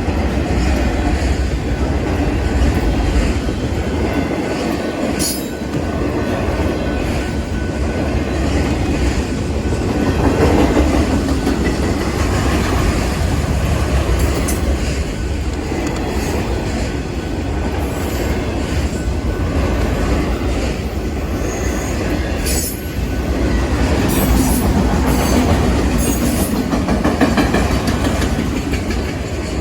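A freight train of auto rack cars rolling past close by, with a steady loud rumble of steel wheels on rail. A few brief sharp high-pitched sounds break through, once about five seconds in and several times toward the end.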